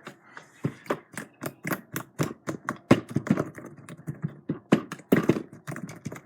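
Slime being worked quickly in the hands, clicking and popping in a rapid, uneven run of about four clicks a second.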